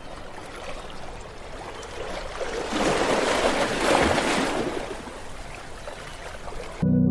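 Ocean waves washing on a shore: one wave swells and breaks about three seconds in, then washes back. Near the end the sound cuts off suddenly and ambient music begins.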